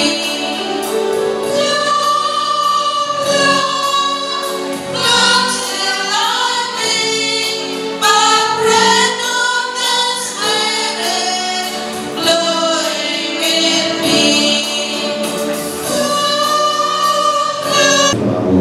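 Church choir singing a hymn, with women's voices prominent, in long held phrases.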